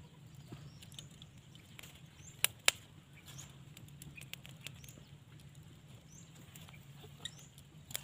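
Thin dry wooden sticks being handled and pushed into the ground to build a small skewer rack: scattered light clicks and rustles, with two sharp cracks close together about two and a half seconds in.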